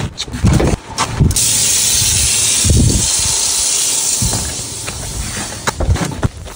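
Water running from a kitchen faucet into a stainless steel sink, fed by a 12-volt water pump, heard as a steady hiss from about a second in that fades after a few seconds. Several thumps, like footsteps, fall around it.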